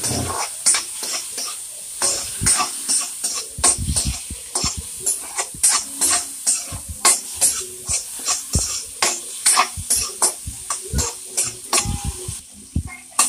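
Metal ladle scraping and clinking against a wok, about two strokes a second, as tomatoes, shallots and garlic are sautéed over a steady sizzle.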